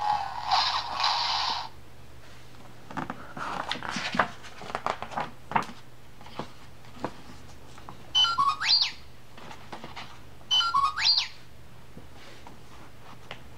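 A sound book's small electronic speaker finishing a short tinny clip. Then paper pages rustling and flapping as a page is turned. Then the same short electronic sound effect, a chirp with a fast rising whistle, played twice a couple of seconds apart.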